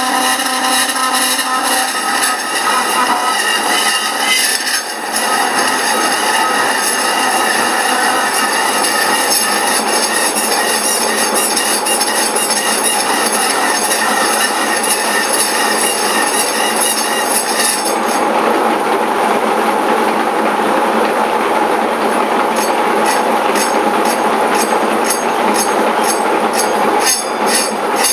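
A power saw cutting lengthwise through a home-cast aluminium bar, a steady screeching metal-cutting noise with high ringing tones. About two-thirds of the way through the ringing drops out, leaving a rougher grinding with faint regular ticks, about two a second.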